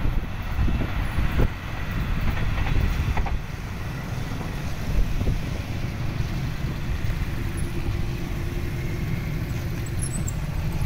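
Motorbikes and a small pickup truck driving across a railway level crossing, their engines running at low speed over a steady low rumble.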